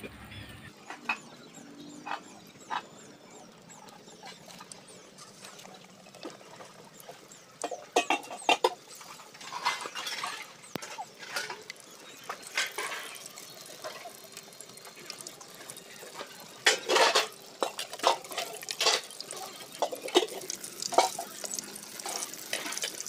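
Batter-coated raw mango slices frying in hot oil in a pan over a wood fire: a low sizzle with irregular sharp crackles and spits, thicker in two spells partway through.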